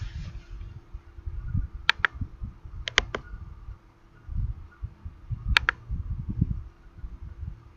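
Computer mouse clicks: one about two seconds in, a quick pair about a second later, and another about five and a half seconds in, over an uneven low rumbling noise and a faint steady hum.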